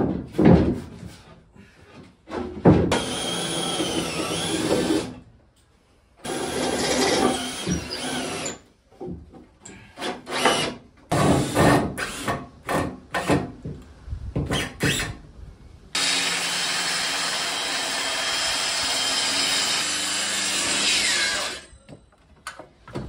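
Workshop power-tool sounds: a few knocks, then a cordless drill driving screws in two steady runs and a string of short trigger bursts. Near the end a circular saw cuts plywood for about five seconds and winds down with a falling whine.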